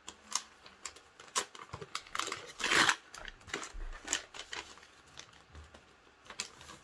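Patterned paper gift wrapping being torn open and crinkled by hand, in a run of short crackles with one louder, longer rip near the middle.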